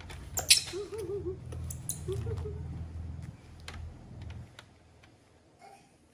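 Sharp clicks and taps of hard plastic being handled, the loudest about half a second in, over a low rumble that fades after about four seconds, with two short wavering squeaks in the first half.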